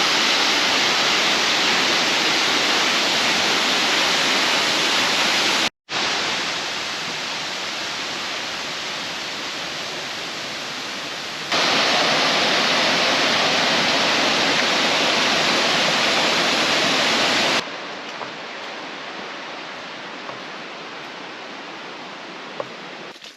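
Waterfall: a steady rush of falling water. Its loudness jumps up or down a few times at cuts between shots, with a short gap about six seconds in.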